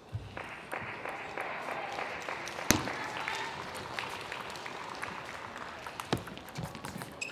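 Audience applauding, starting about half a second in and running on steadily, with a loud sharp knock near the middle and another near the end.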